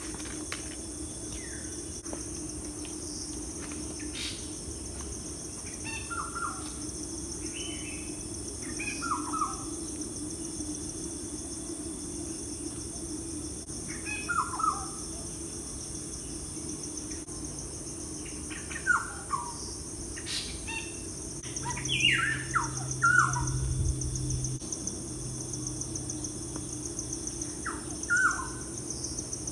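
Birds singing in short bursts of quick, downward-slurred whistled notes, coming every few seconds with the busiest run about three-quarters of the way through, over a steady high-pitched insect chorus and a low steady hum.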